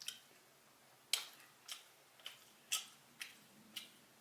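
Close-miked chewing of food, faint, with short sharp crunchy clicks about twice a second.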